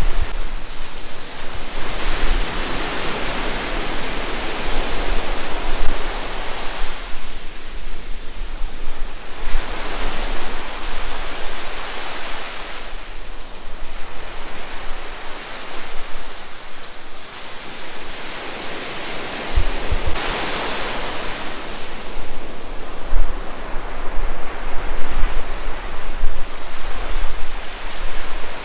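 Sea waves breaking and washing up a sandy beach, the rushing swelling and fading in surges a few seconds long.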